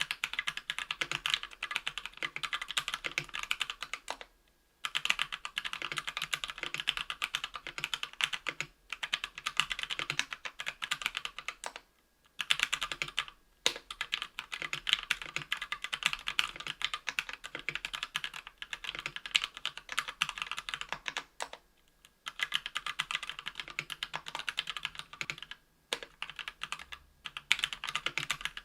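Fast typing on a KBDfans Tofu 60% aluminium mechanical keyboard with lubed Kailh BOX Red linear switches and Cherry-profile PBT keycaps. Dense runs of keystrokes are broken by several short pauses.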